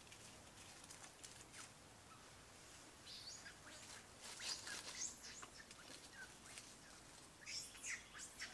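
Newborn macaque giving faint, high-pitched squeaks in short clusters, about three seconds in and again near the end.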